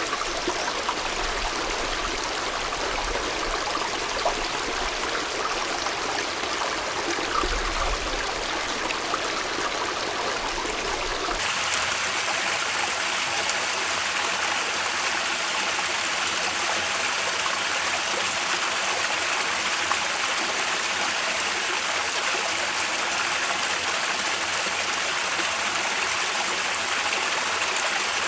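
A mountain headwater stream flows and babbles steadily over rocks. About eleven seconds in, it cuts abruptly to a different stretch of stream with a slightly thinner, brighter rush.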